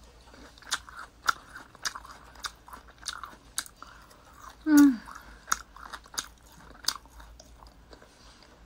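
Close-up chewing of grilled meat: wet mouth clicks and smacks come roughly every half-second. A brief vocal sound, falling in pitch, comes about five seconds in.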